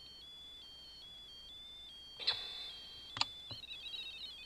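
Ghost-hunting app on a phone emitting high electronic tones that jump from pitch to pitch a few times a second, with two sharp clicks about two and three seconds in.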